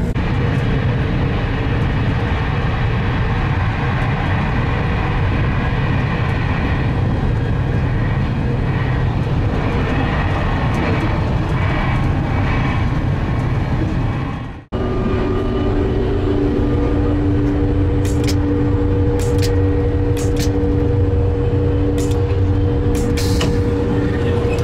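Steady running noise of a TGV Duplex high-speed train heard inside the carriage, a continuous rumble and hiss. About halfway through it drops out for an instant. After that a steady hum at several pitches runs under it, with a few sharp clicks in the second half.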